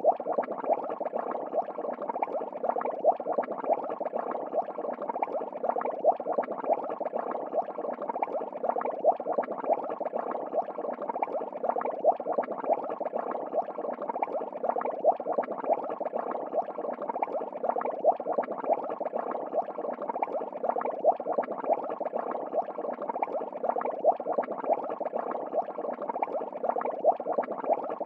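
Steady bubbling water noise of an aquarium, with a slight swell about every three seconds.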